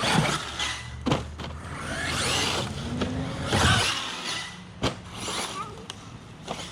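Arrma Mojave 6S brushless RC truck's electric motor whining up in repeated throttle bursts, with tyre and gravel noise and a couple of sharp knocks, about one second and about five seconds in.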